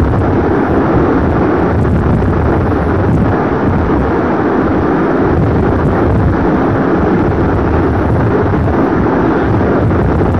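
Aircraft-in-flight sound effect: a loud, steady, deep engine drone with no breaks.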